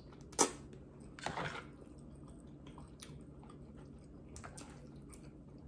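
A person slurping ramen noodles and chewing: a short sharp slurp about half a second in, a longer one just after the first second, then quieter chewing with a few faint clicks.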